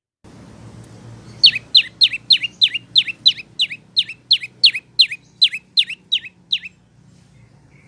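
Prenjak lumut (lancur) calling: a fast, even series of sharp downslurred chirps, about three a second, that stops about a second before the end. A faint low hum runs underneath.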